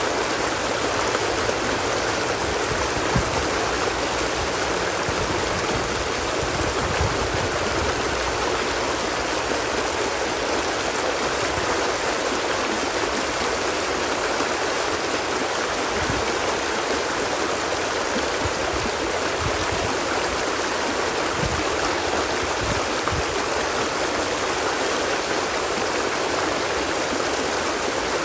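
Water flowing steadily in a stream, an even rushing with no let-up, and a few soft low rumbles now and then.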